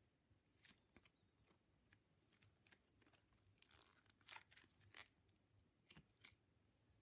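Faint sticky crackles and pops of glitter slime being pressed and pulled by hand. The clicks come irregularly, a few louder ones in the second half.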